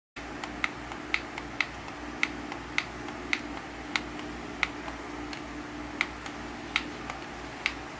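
Repeated sharp clicks of the small setting push button on a universal coin acceptor being pressed with a pin, a louder click about every half second or so with fainter ones between, over a faint steady electrical hum.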